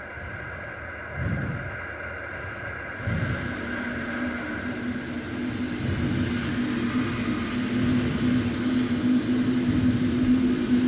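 Playback of a sound-installation recording. A low rumble swells and fades slowly for the first few seconds, then a steady low hum sets in over the rumbling noise and grows slightly louder, giving a train-like drone.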